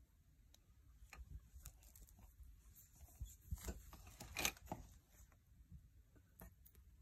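Faint rustling and soft clicks of handling close to a wire rack, busiest about three and a half to five seconds in.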